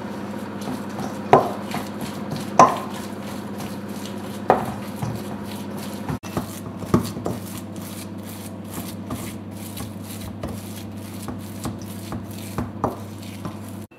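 Wooden spoon mashing and stirring thick bean paste in a stainless steel bowl: a run of scraping strokes, quickening to about three a second later on, with several sharper knocks of the spoon against the metal bowl in the first half. A steady low hum runs underneath.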